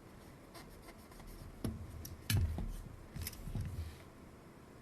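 A few light clicks and knocks of small tools and parts being handled on a workbench, the loudest about two and a half seconds in.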